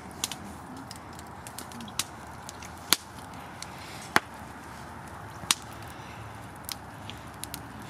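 A series of sharp, irregular snaps or cracks, about six strong ones and a few faint ones over several seconds, over a steady background hiss.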